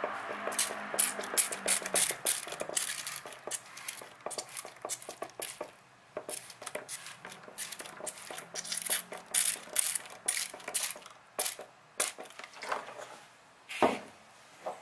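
Hand-pumped trigger spray bottle squirting water in quick repeated pumps, about two or three short hisses a second, with a brief pause about six seconds in. It is misting potting mix to wet it through.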